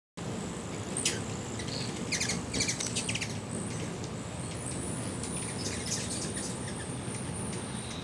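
Hummingbirds at feeders giving sharp high chip and chatter calls, busiest in the first three seconds, then scattered. A thin steady high whine runs through the middle over a low background hum.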